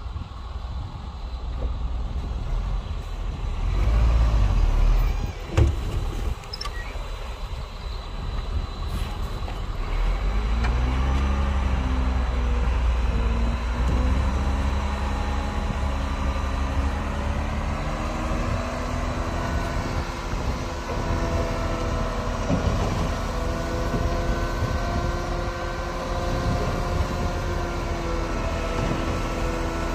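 Heavy diesel machinery engine running, revving up about ten seconds in and then holding at higher revs, with a sharp knock about five seconds in.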